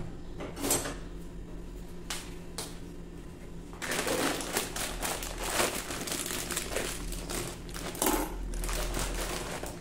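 A few light clicks, then from about four seconds in a plastic granola bag crinkles and rustles as it is handled and cut open with kitchen scissors.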